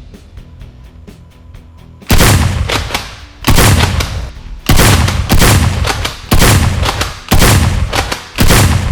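A series of six loud booming gunshot sound effects, about one a second, each ringing out and fading, over background music.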